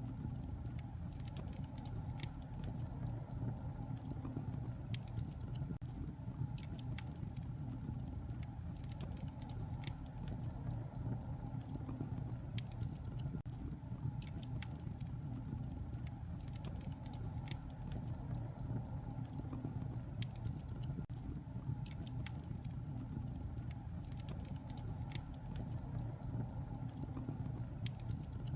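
Wood fire burning in a fireplace: a steady low rumble with frequent small, irregular crackles and pops.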